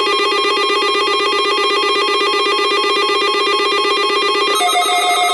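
Electronic weather radio alert alarm sounding for the NOAA Weather Radio Required Weekly Test: a loud, steady, rapidly pulsing electronic tone. The tone changes pitch about four and a half seconds in.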